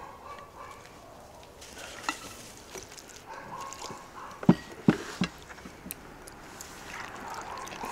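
A spatula working in a frying pan of salmon and vegetables, with sharp knocks against the pan: one about two seconds in, then three in quick succession around the middle.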